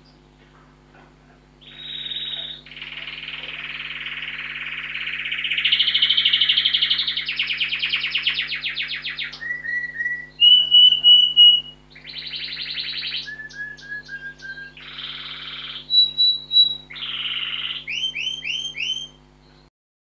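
Domestic canary singing a long, varied song of rapid trills and rolls broken by runs of clear, repeated whistled notes, with the loudest notes near the middle and again near the end. The song stops just before the end. A low, steady hum runs underneath.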